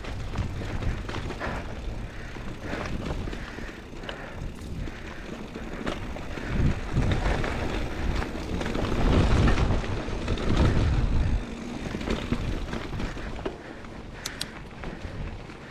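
Scott Spark 950 full-suspension mountain bike rolling along a dirt singletrack, its tyres on the dirt and scattered clicks and rattles from the bike over bumps. Wind rumbles on the microphone throughout and is loudest in the middle stretch.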